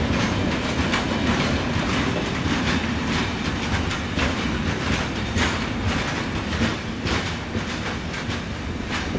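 Freight train of hopper wagons rolling over the tracks, its wheels clattering on the rail joints with irregular clicks. The noise slowly fades as the last wagons pass and the train moves away.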